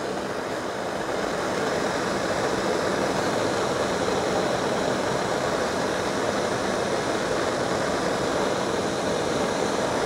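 Handheld gas torch burning with a steady hiss as its flame heats the metal blades of pruning shears to sterilise them. It grows a little louder about a second in, then holds steady.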